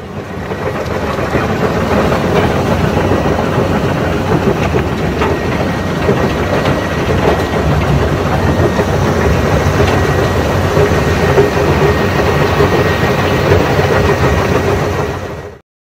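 Track-mounted rock-crushing plant (jaw crusher and cone crusher) running under load: a loud, steady mechanical din of diesel engines and crushing gear with scattered knocks of bedrock being broken. It fades in at the start and fades out shortly before the end.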